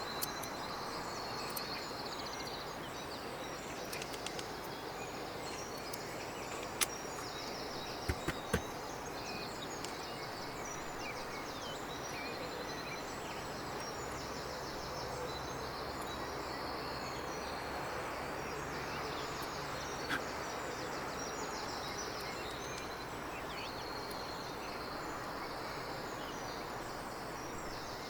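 Steady background hiss with repeated high chirps and trills, like birdsong. A few sharp clicks stand out about seven and eight seconds in and again near twenty seconds, likely small parts being handled.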